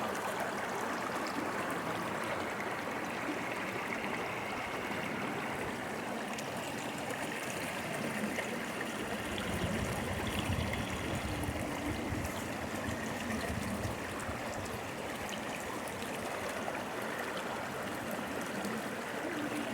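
Mountain river flowing, a steady rush of water, with a low rumble swelling briefly about halfway through.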